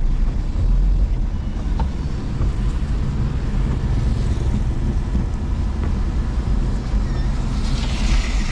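Steady low rumble of a car's engine and tyres on a wet road, heard from inside the car. A hiss comes in near the end.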